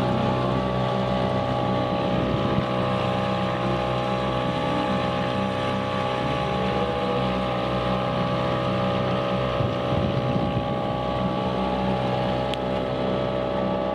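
Outboard motor running at a steady speed, pushing a small aluminum boat along, with wind on the microphone.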